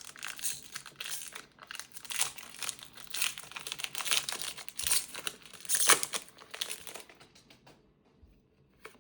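Foil wrapper of a Pokémon booster pack crinkling as it is torn open and handled. The crackling stops about seven and a half seconds in.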